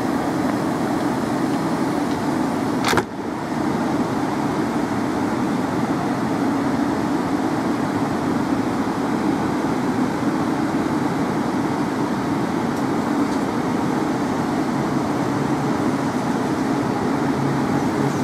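London Midland Class 350 Desiro electric multiple unit standing at the platform, its equipment giving a steady hum, with one sharp knock about three seconds in.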